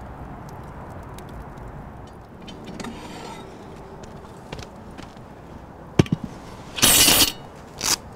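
Metal cookware being handled with clinks and clatter: a sharp knock about six seconds in, then two loud clattering bursts, the longer one about half a second.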